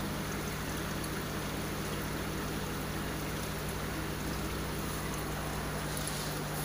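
Steady hum of aquarium pumps with the wash of running water in the saltwater holding tanks.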